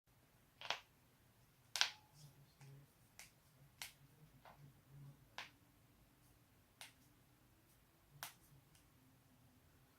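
Human joints cracking: a series of sharp, dry pops, about six strong ones a second or two apart with a few fainter ones between, the loudest about two seconds in.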